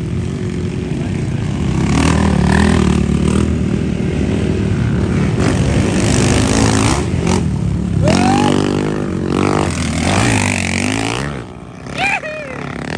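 Motocross dirt bike engines racing on the track, revving hard through the gears. About eight seconds in, one engine's note climbs steeply as the bike accelerates, and the engine noise falls away shortly before the end.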